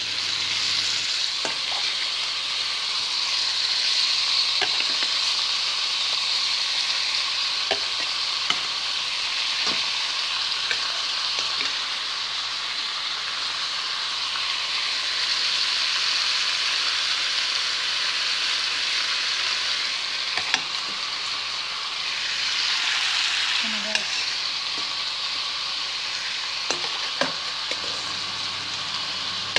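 Chunks of mutton liver sizzling steadily in hot oil in a frying pan, with a few light knocks scattered through.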